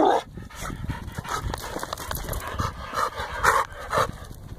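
Dogs panting close to the microphone, with a few short, louder breathy huffs about three and a half and four seconds in.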